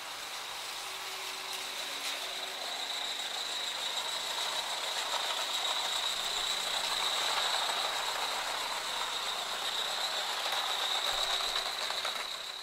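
Small coal-fired Gauge 3 live steam tank locomotive hauling a train of wagons along the track: a steady hiss of steam with a constant high-pitched tone over it, and faint clicking of wheels on the rails. It grows louder over the first several seconds as the train draws near.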